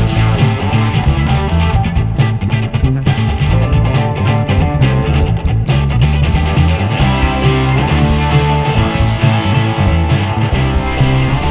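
Background music: a rock track led by guitar over a steady bass line.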